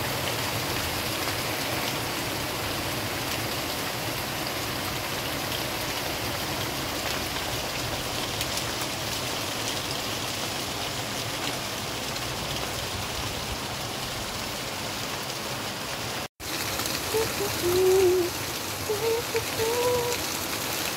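Steady rain falling on roofs, leaves and a wet street: an even, unbroken hiss. About three-quarters through, the sound drops out briefly, and a few short wavering pitched sounds then rise above the rain.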